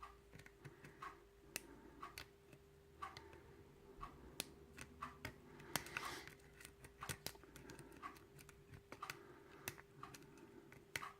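Faint, irregular small clicks and scrapes of a hook pick and tension wrench working the pins of a key-in-knob lock cylinder during single-pin picking, as the pins are felt and set.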